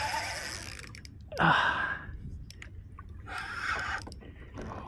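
A person breathing hard: a few heavy exhalations about every one and a half to two seconds, the loudest a sigh with a falling pitch about a second and a half in.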